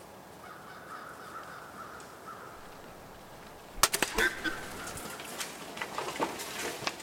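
A sudden sharp crack about four seconds in, then a quick run of clicks and rustles in dry leaf litter as the feral hogs scatter.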